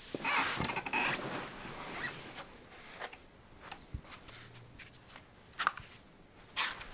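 Cloth rustling and shifting as a man pushes himself up from a couch, followed by a few scattered soft knocks and steps as he moves about. The rustle in the first second is the loudest part, with a sharp click near the end.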